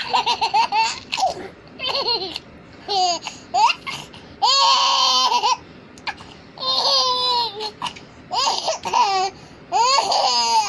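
A young girl laughing in repeated high-pitched bouts and squeals, with short pauses between them and a longer held squeal about halfway through.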